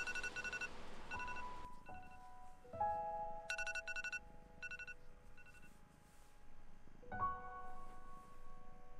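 Soft keyboard background music: slow, held piano-like notes with twinkling chime tones about four seconds in. A brief hiss of rustling noise sits under the music in the first second and a half.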